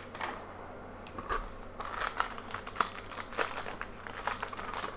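Foil Heroclix booster pack crinkling and crackling as it is worked open by hand, in quick irregular crackles that get busier about halfway through.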